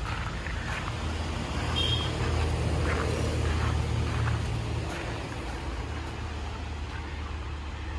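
Steady low rumble of a motor vehicle engine, swelling slightly in the middle and easing off after about five seconds, with a few faint clicks.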